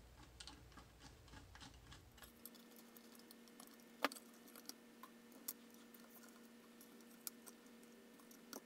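Faint scattered clicks and light taps of the Geiger counter's plastic battery-holder frame and a screwdriver being handled, with one sharper click about four seconds in, over a faint steady hum.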